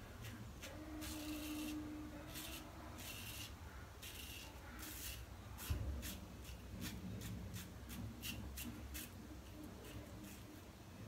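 Gem Micromatic single-edge safety razor scraping through thick lather and stubble on a scalp, in a long run of short repeated strokes. There is a single soft thump about halfway through.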